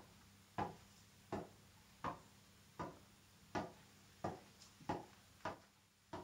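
Tennis ball bounced up repeatedly off the strings of a tennis racket in keep-ups: light, even taps about every three-quarters of a second, around nine in all.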